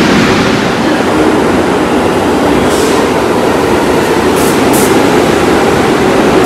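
A New York City subway 1 train of R62A cars pulling into the station, with a loud, steady rumble of wheels on rails. A few brief high-pitched squeaks come about three and four and a half seconds in.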